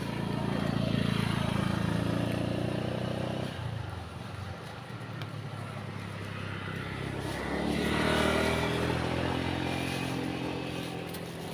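Motor vehicle engines passing on the road, two in turn. The first is loudest about a second in and drops away at about three and a half seconds. The second builds from about seven and a half seconds and slowly fades toward the end.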